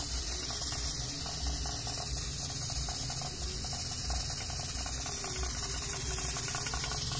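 Stovetop pressure cooker at full pressure, hissing steadily as steam escapes from its weighted valve.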